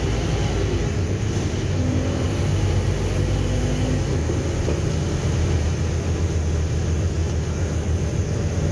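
Scania city bus heard from inside the passenger saloon while it drives along: a steady low engine drone with road and body noise, no break in it.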